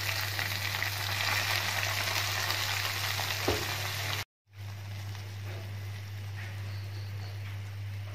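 Hot ghee with fried coconut bits, cashews and raisins sizzling as it is tipped from the pan into the payasam, over a steady low hum, with a light knock of the pan about three and a half seconds in. About four seconds in the sound cuts out briefly and returns as a quieter hiss.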